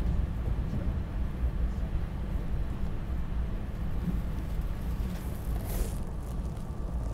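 Steady low rumble of a SEPTA Regional Rail train running, heard from inside the car, with a brief hiss near the end.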